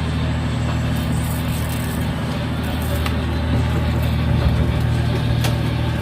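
Engine running steadily at an even speed, a constant low drone, with a few faint clicks over it.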